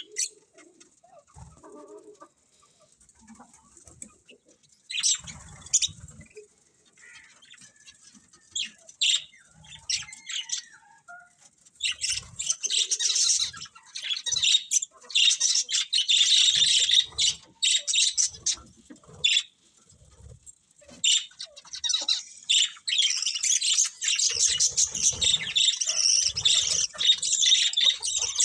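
Budgerigars chirping and warbling: scattered calls at first, then dense, continuous high-pitched chatter from a little under halfway through, with a few low thumps mixed in.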